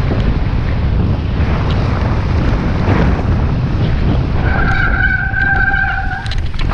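Wind buffeting the microphone on a downhill mountain bike run, a loud steady rushing. Past the middle a high, steady squeal holds for about two seconds, and a few sharp rattles follow near the end.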